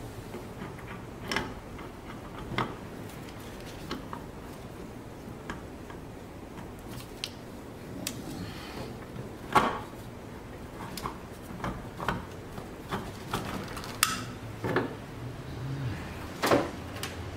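Scattered metal clicks and knocks of a brake booster and master cylinder being handled and fitted into place by hand, at irregular intervals, over a faint steady low hum.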